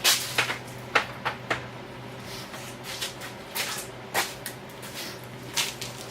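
Irregular metallic clicks and knocks of a socket wrench being handled and fitted to a silencer mounting bolt, over a faint steady hum.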